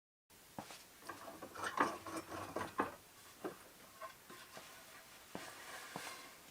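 Irregular light taps, clicks and brief scrapes, as of small hand tools or objects being handled, starting a moment in after a short dead silence and busiest near the middle.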